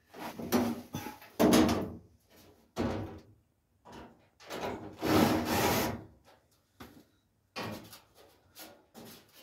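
Steel front panel of a Ford Escort Mk1 bodyshell being fitted by hand: a series of separate metal knocks, clunks and scrapes. The loudest comes about a second and a half in, a longer one follows around five seconds in, and lighter knocks come near the end.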